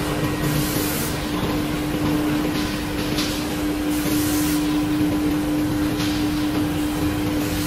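High-frequency welding tube mill running in production: a steady mechanical drone with a constant hum, and short hisses every second or two.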